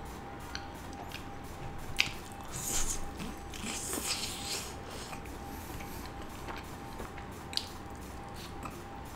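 Close-miked eating sounds: biting and chewing chicken meat off the bone. There is a sharp click about two seconds in, and the busiest mouth noises come around three to four and a half seconds in, over a faint steady tone.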